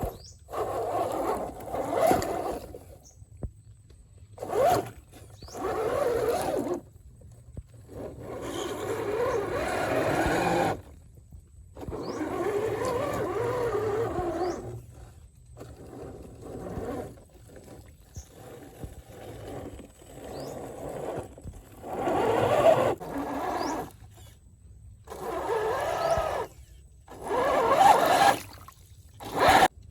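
Radio-controlled Defender 4x4 off-road model's electric motor and gearbox whining in repeated bursts of throttle, the pitch rising and falling, with short pauses between, along with scraping over rough ground.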